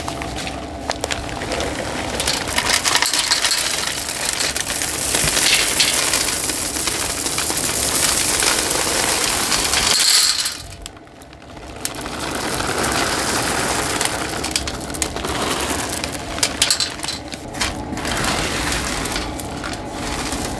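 Wood pellets pouring from a bag into a Weber SmokeFire pellet grill's hopper, a dense rattling cascade, as the hopper is refilled partway through a long cook. The pour runs about ten seconds, breaks off briefly, then more pellets rattle and shift as they are poured and spread by hand.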